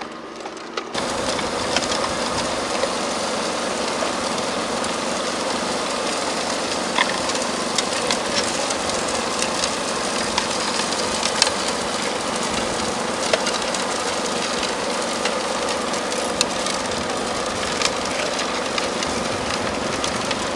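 A small engine running steadily at a constant speed, with scattered light clicks and ticks over it. It starts suddenly about a second in and cuts off at the end.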